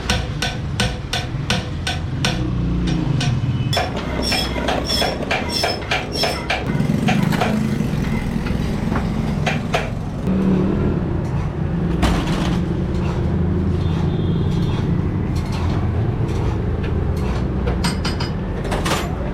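Rapid light metal tapping and clicking, about three or four strokes a second at first, then five taps that each ring with a high metallic note, over a steady low engine-like hum.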